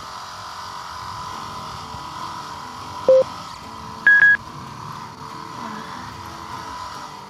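Yamaha WR250R's single-cylinder engine running steadily at low trail speed. Two short electronic beeps cut through it, a lower one about three seconds in and a higher, louder one about a second later.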